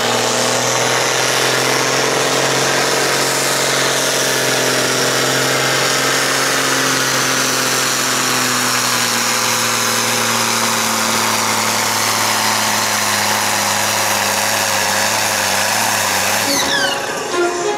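Ford 8730 tractor's diesel engine running flat out under load on a pull: a loud, steady, even note that sags slightly in pitch and changes about a second before the end.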